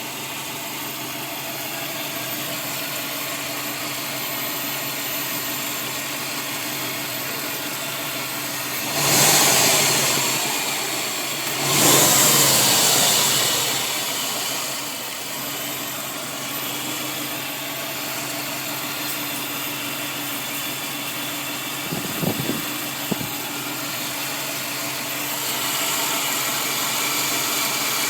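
Subaru WRX turbocharged flat-four engine running with a steady whine, which the owner suspects comes from the belt pulleys because spraying them with WD-40 seems to quiet it for a while. It surges louder twice, about nine and twelve seconds in, and there are a few short clicks a little after twenty-two seconds.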